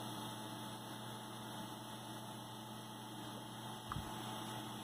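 Faint, steady low electrical hum from running vintage computer equipment, with one soft tap about four seconds in.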